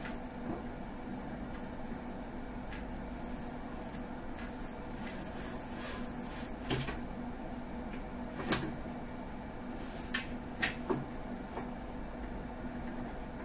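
Steady electrical hum from a running plasma tube kit, with a few scattered knocks and clicks, the loudest about halfway through.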